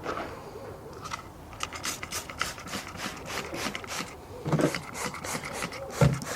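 Trigger spray bottle of degreaser squirted in a quick series of short hissing sprays, about four a second, onto oily tools, followed by a couple of low knocks near the end.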